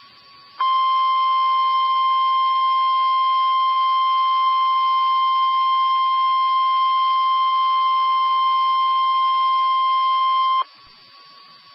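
NOAA Weather Radio 1050 Hz warning alarm tone: one loud, steady tone that starts about half a second in, holds for about ten seconds and cuts off sharply, leaving faint stream hiss. It signals that a warning broadcast, here a severe thunderstorm warning, is about to follow.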